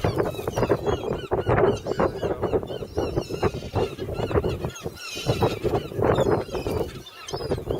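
A flock of birds calling over one another as they crowd in to feed: a dense, unbroken jumble of short, overlapping calls.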